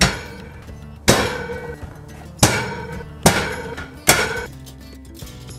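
Wire shelving being pulled forward on its metal shelf brackets and snapping into place: five sharp metallic clicks with a brief ring, roughly one a second. Each click is the sign that a shelf has locked into its bracket.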